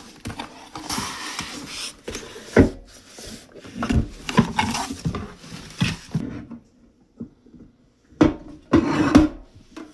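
Rustling packaging and handling knocks as a small metal toolbox is taken out of its box, with two heavier thumps near the end.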